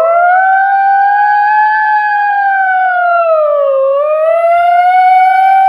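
A girl imitating a fire truck siren with her voice: one long, loud wail that slowly rises, sinks to a low point about four seconds in and rises again.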